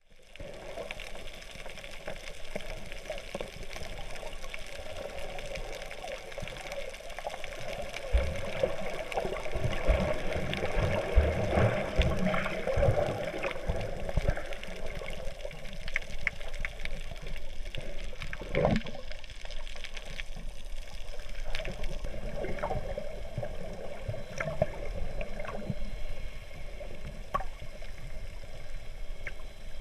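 Water sounds picked up by a camera underwater: a steady bubbling, rushing haze with scattered sharp clicks. A run of low thumps comes in the middle.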